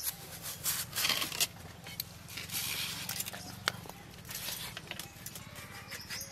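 A potato being peeled against a fixed curved boti blade: irregular soft scrapes and small clicks, one sharper click near the middle, over a faint steady low hum.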